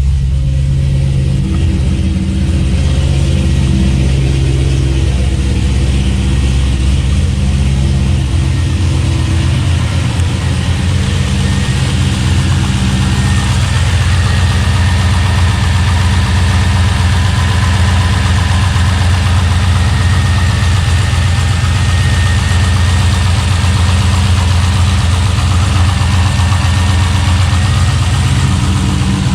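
Pontiac G8 GT's V8 idling steadily just after starting, with its newly fitted alternator charging at about 14 volts.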